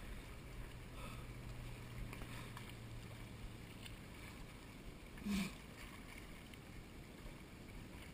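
Faint waterside background noise, with a low steady hum for about the first four seconds and one brief louder sound a little past five seconds in.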